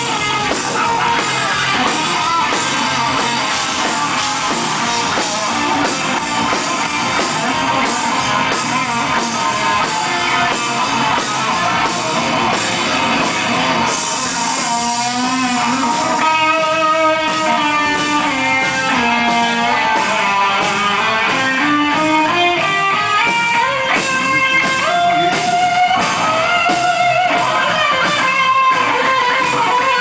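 Live rock band playing, electric guitar to the fore. About halfway in, a single lead guitar line with bent notes comes out over the band.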